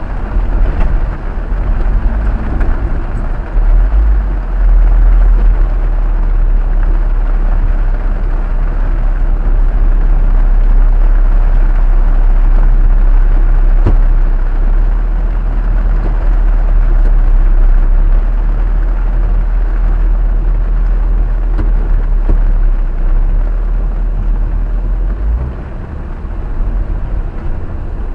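Jeep Wrangler Unlimited driving on a dirt trail: a steady deep engine and tyre rumble, louder from about four seconds in and easing off near the end.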